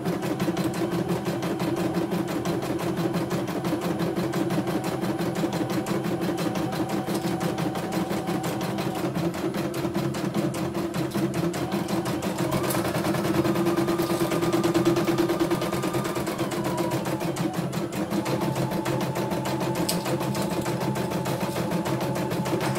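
CNY E900 computerized embroidery machine stitching at its set speed of 650: a fast, steady needle clatter over a motor hum, with a higher whine from about twelve to seventeen seconds in. It is a test run after an overhaul in which the power supply, motor and motor fan were replaced.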